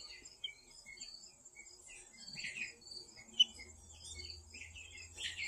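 Many short, high chirps and peeps: young guinea fowl calling together with an Easter Egger chick peeping from inside its pipped egg. A steady high whine runs beneath them.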